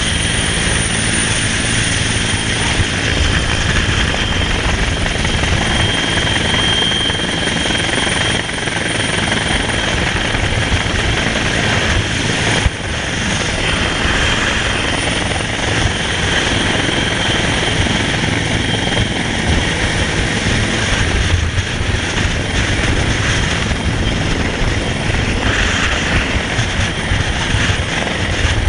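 Coast guard rescue helicopter hovering directly overhead: steady, dense rotor and turbine noise with a high whine, heard from beneath it in the rotor downwash. One short knock about halfway through.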